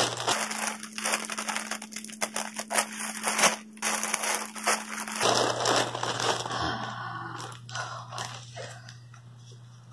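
Clear plastic packaging bag crinkling and crackling as a plush toy is pulled out of it: dense crackling for about five seconds, then softer, sparser rustling that dies away near the end.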